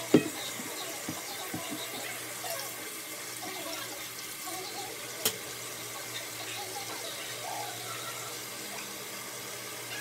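Water running steadily in a bathroom, with a knock at the start and one sharp click about five seconds in.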